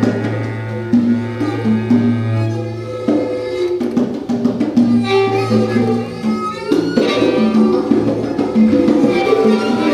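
Live free-improvised music: congas struck under shifting pitched string notes, over a low held note that drops out after about three seconds and comes back briefly in the middle.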